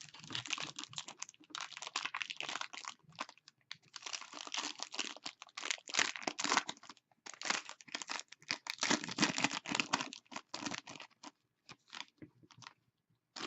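Wrapping on a hockey trading-card box or pack being torn open and crinkled in the hands, in long runs of crackling with short pauses and a few scattered crinkles near the end.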